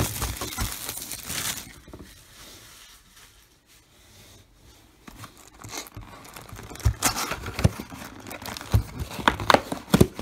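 Plastic shrink-wrap crinkling as it is pulled off a sealed cardboard trading-card box, then, after a quieter pause, the cardboard lid being torn and pried open with a run of sharp crackles and taps.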